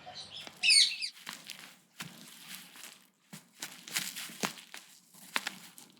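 A short burst of quick chirping notes about half a second in, then irregular crackling and crunching clicks, like something small gnawing or rustling.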